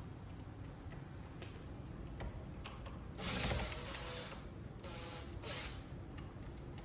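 Power drill backing out a long screw from the old door lock, running in two short bursts.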